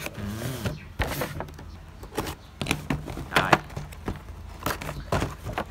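Clicks, knocks and rustling of a toy remote-control car's cardboard box and plastic packaging being handled and pried open, in irregular sharp taps.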